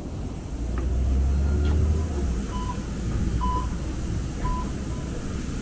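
Inside a light-rail car: a low rumble swells about half a second in and eases after about two seconds, while several short electronic beeps sound at uneven intervals.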